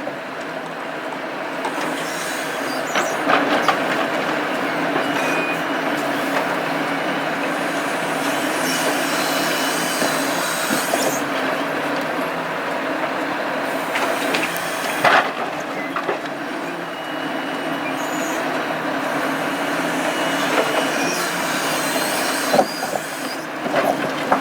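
Volvo FH logging truck running steadily, with metallic squeals and a few sharp knocks.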